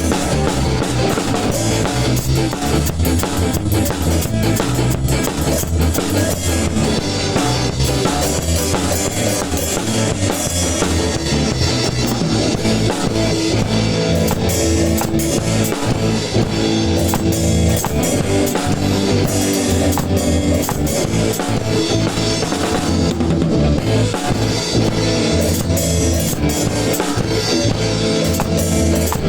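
A live band playing ska with a PDP Encore acoustic drum kit and electric guitar: a steady drum beat with cymbals and bass drum under the guitar.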